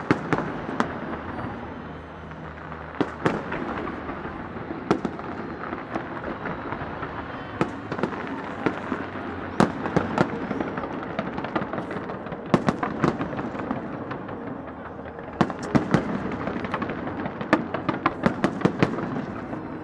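Fireworks display: sharp bangs at irregular intervals, coming in quicker clusters in the last few seconds, over the steady hubbub of a large crowd.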